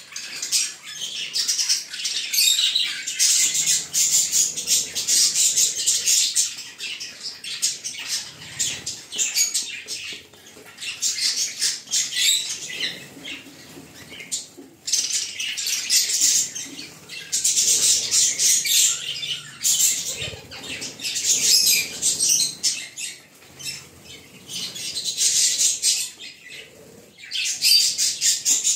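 Flock of budgerigars chattering and warbling: dense, high-pitched twittering that comes in stretches of a few seconds with short lulls between.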